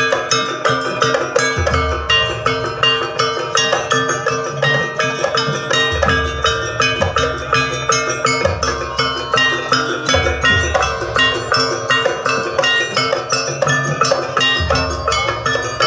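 Javanese jaranan music from a live percussion ensemble: fast, dense strikes of ringing tuned metal percussion over drumming, with a deep low stroke every few seconds.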